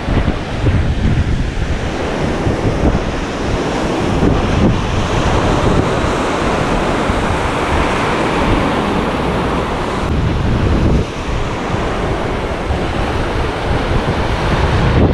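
Sea waves washing steadily, with wind buffeting the microphone in uneven low gusts.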